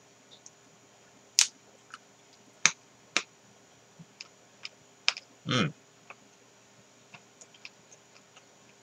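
Eating a Giant Corn cookies & cream ice-cream cone: a scattering of sharp, crisp crunches and clicks as the chocolate-topped wafer cone is bitten and chewed, with a short 'mm' sound from the mouth about halfway through.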